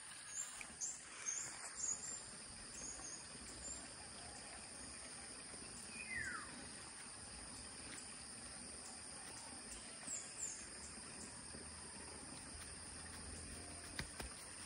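Outdoor ambience of insects keeping up a steady high-pitched drone, with short bird chirps scattered through and one descending bird call about six seconds in.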